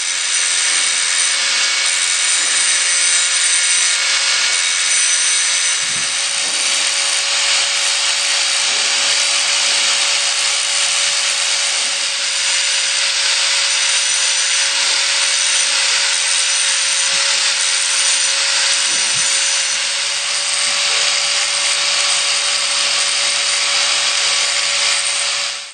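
Electric angle grinder running steadily while its abrasive disc grinds open-end wrenches: first a chrome-plated steel wrench that throws sparks, then a beryllium-copper non-sparking wrench. A constant motor whine sits over the harsh grinding noise.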